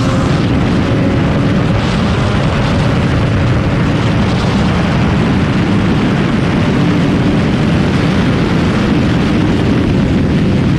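Heavy wind rush on the microphone over a Triumph Street Triple's three-cylinder engine at high speed on a track straight; the wind mostly covers the engine as speed climbs past 220 km/h. The engine's note comes through more clearly at the start and again near the end as the bike slows under braking.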